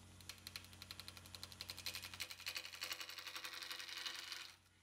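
Turning tool cutting into a cherry blank spinning on a wood lathe: a rapid, even tapping as the tool meets the wood, stopping shortly before the end, over the lathe motor's low hum.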